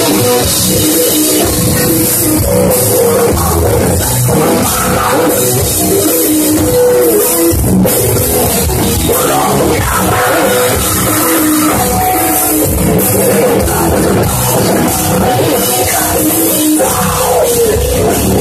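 Heavy metal band playing live at full volume: distorted electric guitars over a pounding drum kit, without a break.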